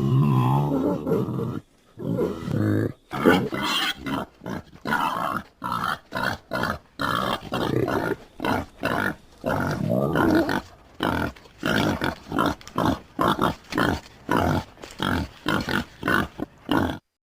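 Wild boar grunting: a longer grunt at the start, then a rapid run of short grunts, about two or three a second, that cuts off suddenly near the end.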